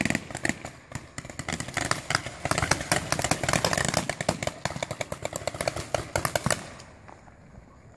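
Paintball markers firing in rapid bursts, many shots a second, from several players at once; the shooting is densest through the middle and dies away about a second before the end.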